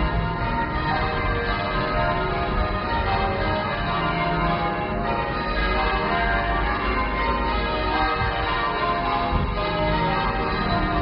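Church bells ringing continuously, many bells sounding one after another so that their tones overlap in a dense, unbroken peal.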